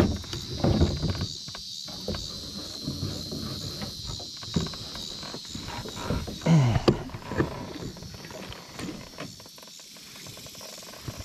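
Insects trilling steadily in a high, evenly pulsing chorus, with a few low knocks and handling bumps near the start and again about six to seven seconds in.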